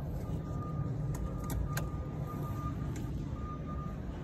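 Perkins diesel generator engine running steadily at constant speed, a low even rumble.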